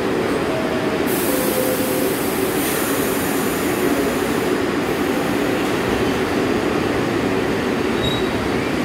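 R62A subway train on the 1 line pulling out of the station. A hiss of air starts about a second in and lasts a few seconds, over the steady rumble of motors and wheels as the cars start to roll past.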